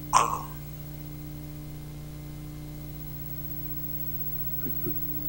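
Steady electrical mains hum in the microphone's sound system, with a short breathy vocal sound just after the start and two faint short sounds near the end.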